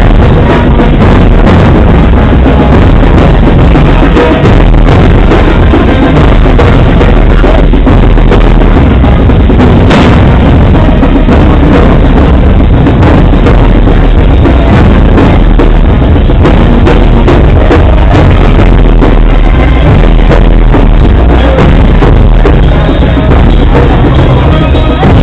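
Loud band music with bass drum and snare drum keeping the beat.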